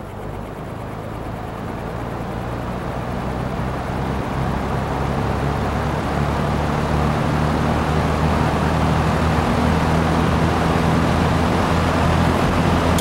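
Dominion metal box fan running, with a rush of air and a low motor hum. The sound builds steadily over the first seven seconds or so as the blades speed up, then holds level.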